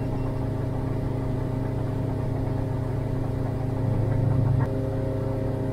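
Engine of a 21-foot Crooked PilotHouse boat running steadily under way, a steady drone that swells slightly a little after halfway.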